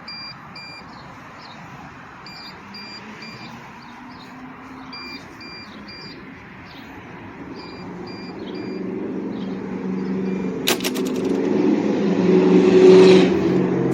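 Greenworks 80V cordless mower sounding its warning beeps: short high beeps in repeated groups of three, the unit's signal of a fault rather than a start. From about eight seconds in a low machine hum grows steadily louder and covers the beeps.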